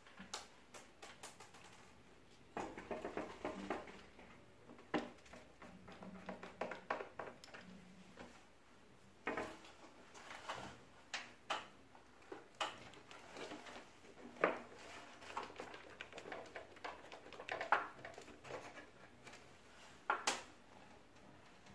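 Hands handling and fitting plastic parts of a split air conditioner's indoor unit: irregular clicks, taps and rustling.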